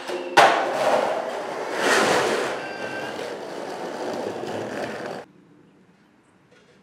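Skateboard hitting a metal handrail with a sharp clack, followed by several seconds of grinding and wheel noise that cuts off abruptly, then quiet.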